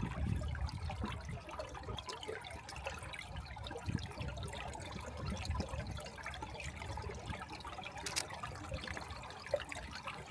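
Water trickling and running beneath a frozen waterfall's ice, a steady noisy wash with a low rumble underneath and a sharp click about eight seconds in.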